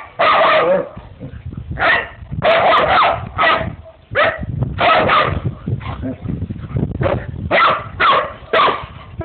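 Two dogs, a Labrador and a mixed breed, in rough play, barking repeatedly in short loud bursts, about a dozen spread over several seconds.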